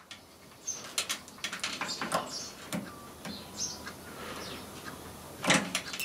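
Handling noise from multimeter test probes and leads being moved and reversed on a microwave's high-voltage diode: scattered small clicks and knocks, with one louder clatter about five and a half seconds in.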